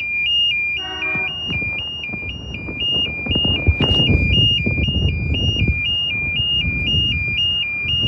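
Level crossing warning alarm sounding, a loud high electronic tone switching back and forth between two pitches about twice a second, over a low rumbling noise.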